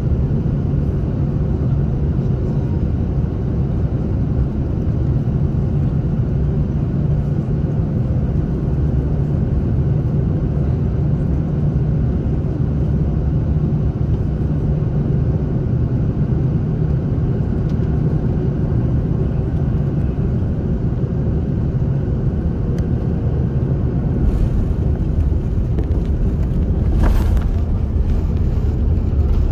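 Airbus A330-300 cabin noise on short final: a steady low rumble of engines and airflow. Near the end a sharp thud comes as the main wheels touch down, and the low rumble grows with the wheels on the runway.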